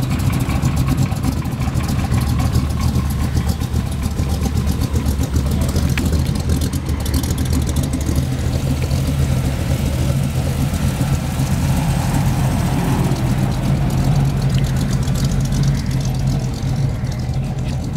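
Hot rod roadster's engine idling steadily.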